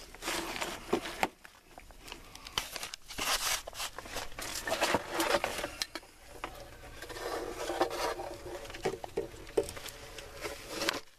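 Handling noise as a new plastic sump pump with its riser is set down into the sump pit: irregular scraping, rustling and small knocks.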